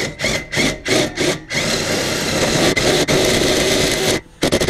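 Cordless drill spinning a 2-inch hole saw against a thin stainless steel plate. It runs in quick trigger bursts, about three a second, for the first second and a half, then steadily for about two and a half seconds, stops briefly, and starts again in short bursts near the end. The hole saw's arbor is too fat on the end for this drill's chuck to grip it properly.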